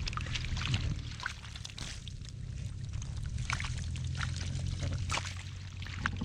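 Water splashing and trickling in a flooded field, in irregular short splashes over a steady low rumble.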